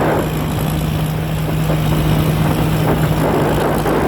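Manot Karnchang combine harvester with a Hino diesel engine running steadily at work in rice, a constant engine hum under the clatter and rush of the machine.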